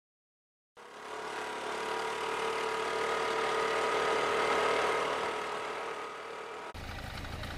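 Honda Activa scooter's small engine running as it rides closer, loudest about halfway through and fading as it passes. Near the end the sound switches suddenly to a lower, rumblier engine note.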